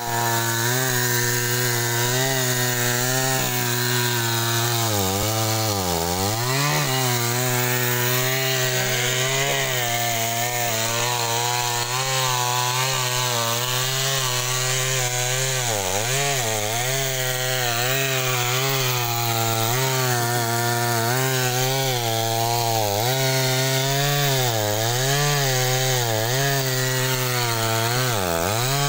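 Two-stroke chainsaw running at high revs while cutting through a tree trunk. Its steady pitch dips briefly and recovers several times as the chain bites into the wood.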